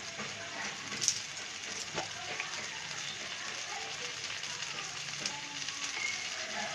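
Spiced mixed vegetables frying in oil in a pan: a steady sizzle with light crackling, and a faint click or two.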